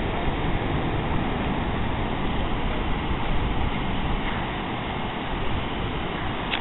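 Surf breaking on a sandy beach mixed with wind buffeting the microphone: a steady rushing noise with a gusty rumble underneath.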